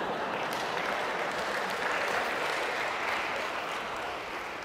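Audience applauding; the clapping holds steady, then dies away near the end.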